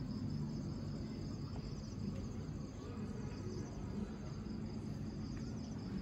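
Steady high chirring of insects, a fast even trill that does not let up, over a low steady hum.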